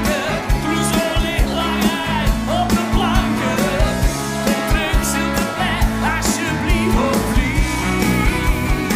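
Live pop-rock band playing with a male lead singer: sung melody over a steady drum beat with guitar and keyboards.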